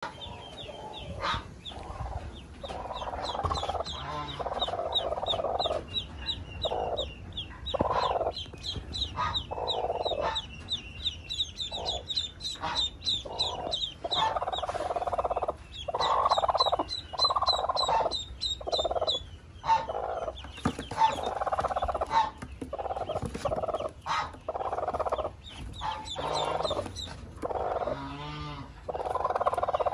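Newly hatched ducklings peeping in quick runs of short, high calls, with a broody hen clucking among them in lower calls that come every second or so.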